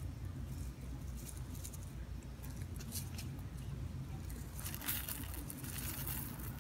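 Dried chopped chives shaken from a spice jar onto a pan of simmering cream sauce. Light clicks come first, then a dense, crisp pattering rustle from about four and a half seconds in, as the flakes pour out. A steady low hum runs underneath.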